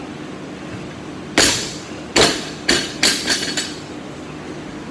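Loaded barbell with rubber bumper plates dropped from overhead after a snatch. It hits the floor about a second and a half in and bounces three more times, each bounce closer to the last, ending in a short rattle of the bar and plates settling.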